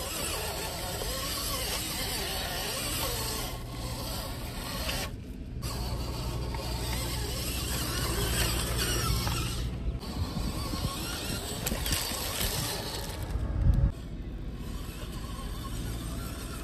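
Electric motor and gearbox of an MN99S Defender 90 scale RC crawler whining as it drives, its tyres and body pushing through grass and dirt. Late on there is one brief loud thump.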